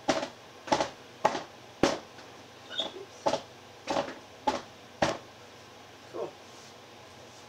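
A mallet with a white head striking wet poured acrylic paint on a tile, the hammer-pour technique that spreads the paint out: a run of about nine taps, roughly two a second, that stops about five seconds in, with one fainter tap a second later.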